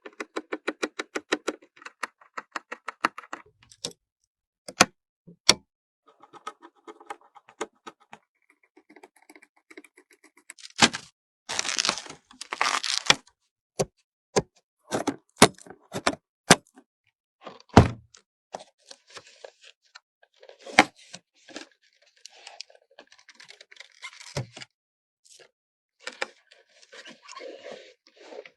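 Handling noises of computer parts being assembled: a rapid run of clicks for the first few seconds, then scattered sharp clicks, knocks and short rattles of hard plastic and metal.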